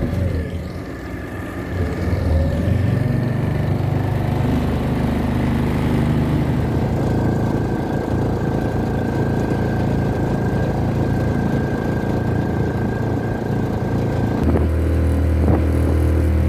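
Suzuki DF2.5 small single-cylinder four-stroke outboard motor running under way, picking up speed a couple of seconds in and then holding a steady hum.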